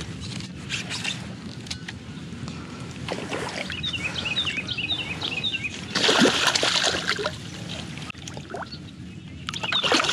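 A hooked northern snakehead thrashing at the surface of shallow, weedy swamp water, with loud splashing about six seconds in and again near the end.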